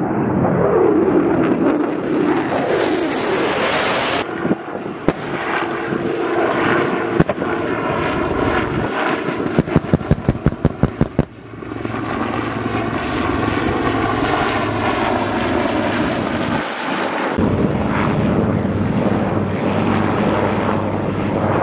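Military aircraft flying low: a fixed-wing aircraft passes first, its engine pitch sweeping down, followed by Marine AH-1Z Viper and UH-1Y Venom helicopters running steadily. Midway comes a rapid string of sharp bangs, about six a second for two seconds.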